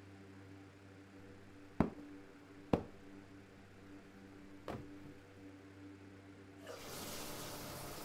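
A low steady hum with three sharp knocks, two close together and a third about two seconds later. Near the end a steady hiss comes in and holds.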